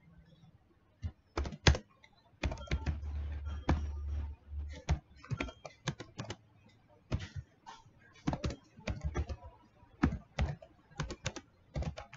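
Computer keyboard typing: irregular runs of keystroke clicks with short pauses between them.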